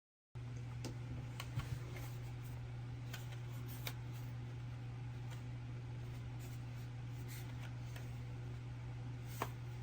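A steady low hum with a few light, scattered clicks and taps: a cluster in the first two seconds, one near the middle and one near the end.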